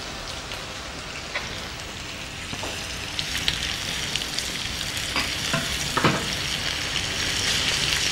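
Chicken pieces sizzling in a frying pan while a spatula stirs them, scraping and knocking against the pan. The sizzle grows a little louder about three seconds in, with a few sharper knocks of the spatula around five to six seconds in.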